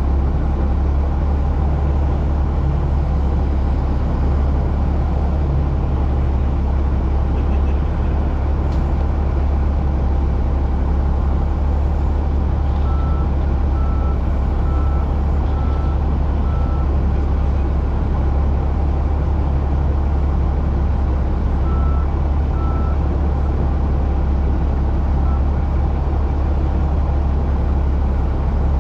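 Heavy diesel construction equipment running steadily with a deep drone. A backup alarm beeps about six times in a row a little before the middle, then a few more times later on.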